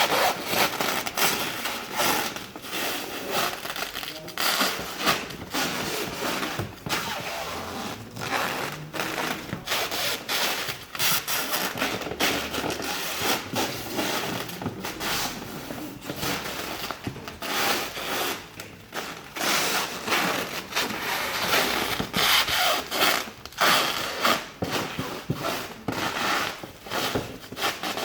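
Irregular rubbing and scraping handling noises, a rapid run of short strokes with no steady machine tone.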